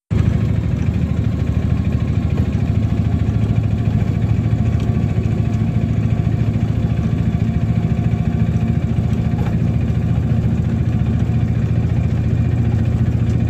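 Motorcycle engine running steadily at an even cruising speed, with road and wind noise.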